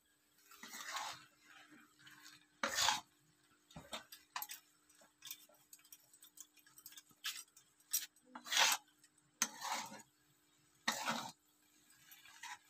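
A spatula scraping and clinking against a steel kadhai as chow mein noodles are stirred and tossed, in short irregular strokes. The loudest scrapes come about three, eight and a half, and eleven seconds in, over a faint steady hum.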